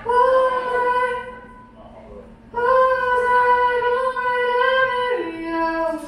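A woman's voice singing long held notes with a slight waver, twice, with a short pause between. The second note steps down to a lower pitch near the end.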